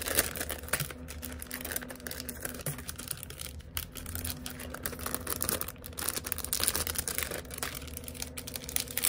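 Clear plastic bag crinkling and crackling as hands handle it and press it flat, with a run of quick small clicks.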